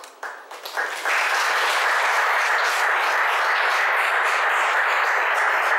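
Audience applause: a few scattered claps at first, then, about a second in, it fills out into dense, steady clapping from the whole room.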